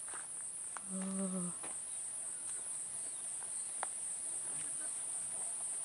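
Insects shrilling in a steady, high-pitched drone. A brief human voice sounds about a second in, and a few faint clicks are scattered through it.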